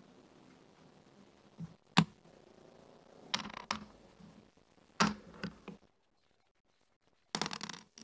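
Backgammon checkers clacked down one at a time onto a wooden board, several sharp clicks a second or so apart. Near the end comes a short dense rattle of dice rolled onto the board.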